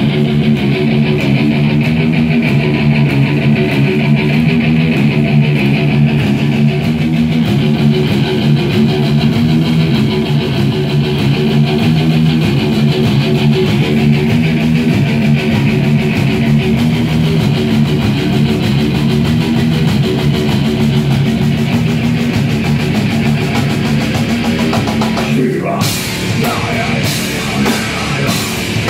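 Live rock band playing loud, with electric guitar ringing out over drums. Near the end the full band crashes in with hard cymbal and drum hits.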